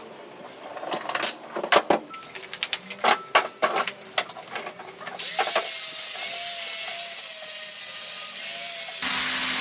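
Sharp knocks and taps, then from about five seconds in a steady hiss that steps louder near the end.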